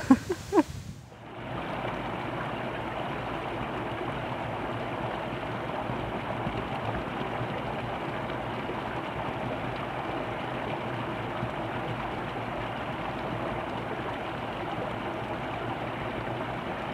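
Steady rushing of running creek water.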